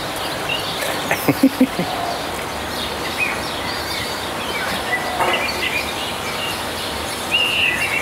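Steady outdoor background hiss with small birds chirping, a short run of chirps near the end, and a few brief knocks about a second and a half in.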